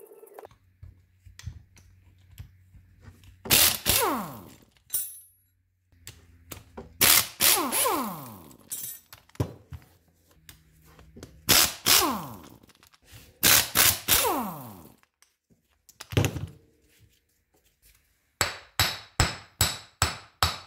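Metal-on-metal work on a W126 Mercedes front-suspension mounting bracket. There are several loud bursts of clanking, each trailing off into a falling whine, then a quick run of about seven sharp strikes, roughly three a second, near the end.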